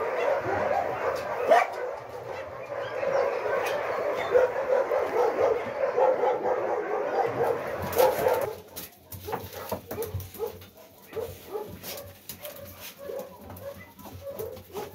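Many dogs barking and yelping at once in a dense, continuous chorus. It cuts off abruptly about eight and a half seconds in, leaving quieter scattered yips and whimpers.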